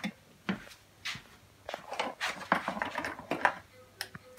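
Scattered light clicks and knocks of toy cookware and wooden toy food being handled on a child's wooden IKEA play kitchen.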